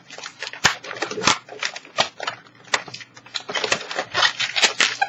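Latex 260 modelling balloon squeaking and rubbing as it is twisted into bubbles and an ear twist, a dense run of irregular squeaks and crackles with a sharp click early on.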